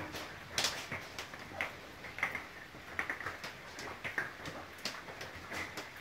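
Parrots in an aviary giving short, sharp chirps and clicks at irregular intervals, about one or two a second.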